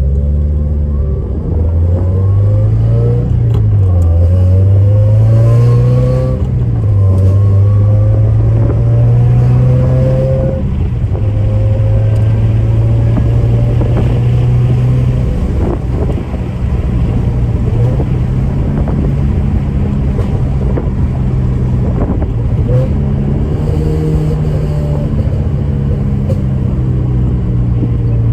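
Scion FR-S's 2.0-litre flat-four boxer engine, breathing through catless longtube headers, a straight front pipe and an HKS Hi-Power catback, pulling up through the gears with shifts about three and six seconds in, then cruising at a fairly steady engine speed. The exhaust has a little rasp.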